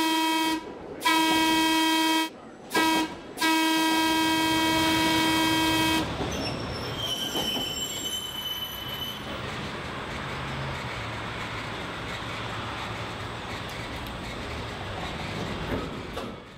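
Horn of a 1923 Cincinnati Car Company 'L' car tooting in a series of steady blasts: one ending just after the start, a second lasting about a second, a brief toot, then a long blast of about two and a half seconds. After the horn stops, a steady train running noise carries on.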